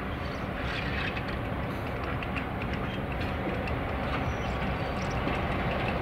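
A train rolling by on the rails: a steady rumble with scattered wheel clicks, slowly growing louder.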